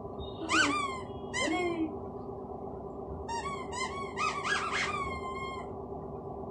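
Chicken-shaped rubber squeaky dog toy squeaking: two squeaks in the first two seconds, then a quick run of shorter squeaks as it is squeezed and mouthed.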